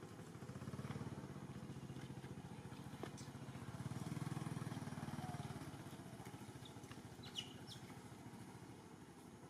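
Motorcycle engine running faintly, growing louder about four seconds in and then fading away, as if passing by.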